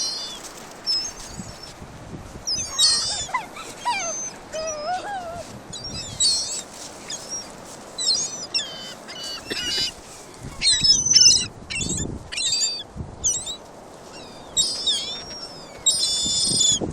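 Gulls calling, a string of short, high cries that come in clusters every second or two.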